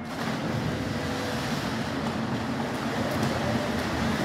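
Swimmers splashing through the water of an indoor pool just after diving in off the starting blocks, a steady wash of splashing noise.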